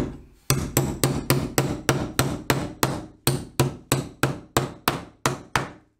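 A hammer driving a steel nail stop plate onto a wooden stud to shield the wire running through it. It strikes steadily, about three blows a second, each with a short metallic ring, and stops abruptly near the end.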